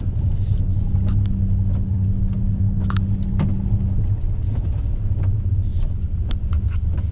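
Inside a moving pickup's cab on a wet dirt road: a steady low rumble of engine and tyres, with scattered sharp ticks and clicks throughout. A low hum in the rumble fades out about halfway through.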